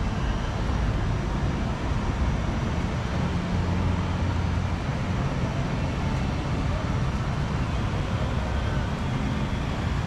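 Steady background din of a large indoor theme-park hall, a mix of distant crowd voices and general noise with no distinct events.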